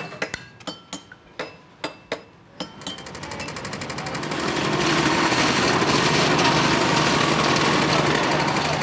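Drinking glasses holding different levels of water struck one at a time, each ringing a short note of its own pitch. About three seconds in these give way to a loud, fast, even rattle with a steady low hum, which grows louder and then holds.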